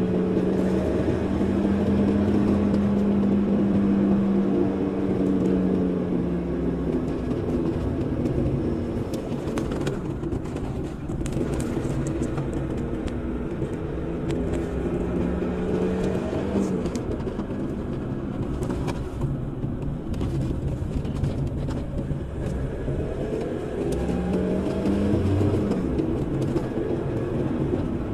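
Car engine and road noise heard from inside the cabin while driving slowly through town. The engine hum holds steady, then rises and falls in pitch a few times as the car slows and speeds up again.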